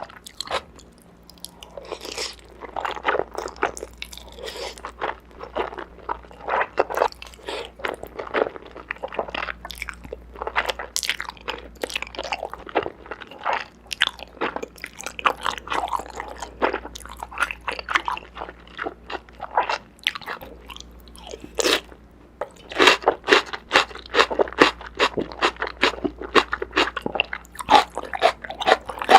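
Close-miked eating: a mouthful of noodles with green onion and enoki mushroom being bitten and chewed, with irregular crisp crunches. There is a brief lull about two-thirds of the way through, then quicker, denser crunching.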